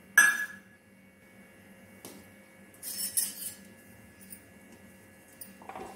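A metal spoon clinks sharply once against a steel kadhai just after the start, with a short ring, then a softer clatter of kitchen utensils around the middle.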